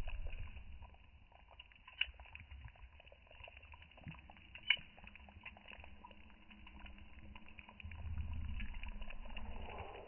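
Wood fire crackling with small ticks under a simmering clay pot of bean stew, with two sharp pops, one about two seconds in and one just before the middle. A low rumble swells near the end.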